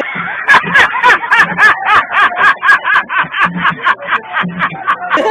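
A man laughing hard in a long run of quick, evenly spaced bursts, about four to five a second.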